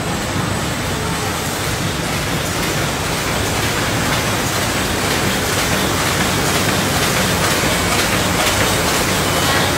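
Square-bottom paper bag machine with an inline two-colour flexo printing unit running at production speed: a steady mechanical din of motors, rollers and the moving paper web, with a low hum and a light clatter.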